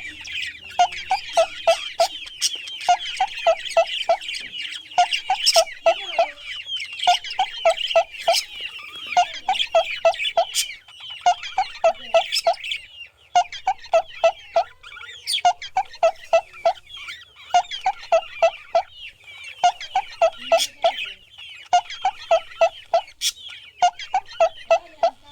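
Many chicks peeping constantly, over a chicken clucking in short runs of about four clucks that repeat every second and a half or so.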